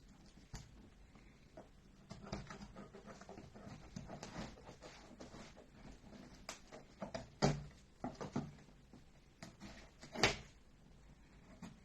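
A gift parcel being handled and opened by hand: scattered rustling and small clicks of the packaging, with two louder knocks, one about halfway through and one near the end.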